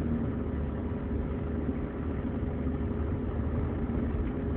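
Steady engine and road noise heard inside the cabin of a 2003 GMC Envoy driving slowly, a low even hum with no distinct clunk.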